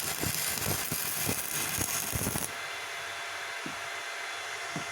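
Stick (MMA) welding arc from an inverter welder crackling and spitting, then cutting off suddenly about halfway through. The welder's cooling fan keeps running with a steady hum and hiss after the arc stops.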